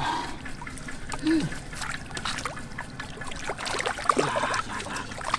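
Shallow swamp water splashing and trickling in irregular bursts, with scattered small knocks and a couple of brief voice sounds.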